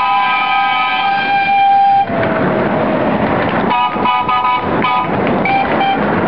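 Narrow-gauge steam locomotive's whistle sounding one long multi-note blast that cuts off about two seconds in. After it, the train's carriages clatter past under the brick bridge, with a few short tonal snatches over the noise.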